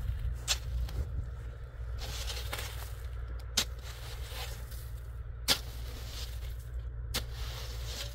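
Long-handled shovel chopping into and scraping through crusted snow and ice chunks: four sharp knocks a second or two apart, with crunching scrapes between them, over a low steady rumble.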